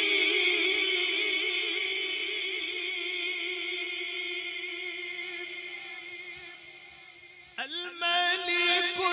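Male voice reciting a naat unaccompanied through a PA system, holding one long wavering note that slowly fades away, then starting a new phrase with a rising slide near the end.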